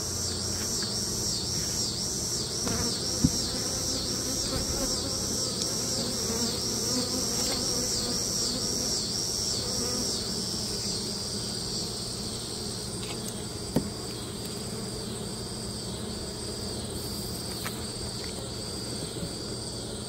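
Honey bees buzzing steadily over an open hive. A high chirping pulses about two to three times a second and weakens after about twelve seconds, and there are two sharp knocks, one a few seconds in and one about two-thirds through.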